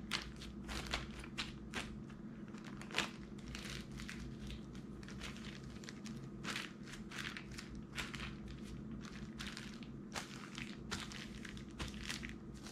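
Plastic zip-top bag crinkling and rustling in irregular bursts as hands press the air out of it, with marinade sloshing inside, and fingers work along its zipper to seal it. A faint steady hum runs underneath.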